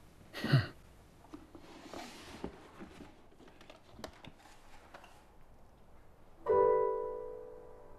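A brief voice-like sound, then faint rustling and light clicks of things being handled in a cardboard box. About six and a half seconds in a piano chord of background score sounds and slowly fades.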